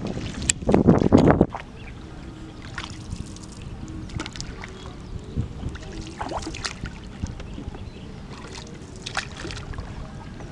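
Wooden paddle dipping and pulling through the water beside a small boat, a short splash every second or two. Wind buffets the microphone for about the first second and a half.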